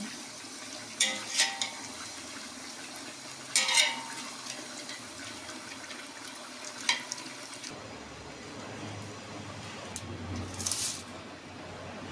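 Chicken pieces frying in oil in a large aluminium pot, sizzling steadily, while a metal spatula stirs them and scrapes and knocks against the pot a few times.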